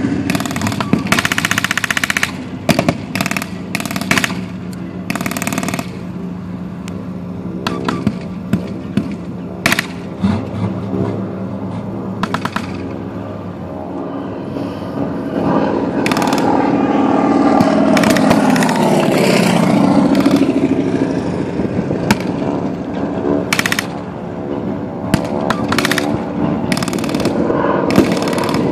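Machine guns firing blanks in short bursts and single shots, over the steady drone of an armored vehicle's engine running. The engine's pitch sweeps down and back up about two-thirds of the way in.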